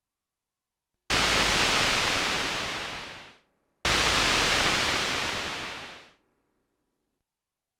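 Two bursts of synthesizer white noise, each starting suddenly and fading away over about two seconds: a noise layer for a synthesized anime flight sound effect.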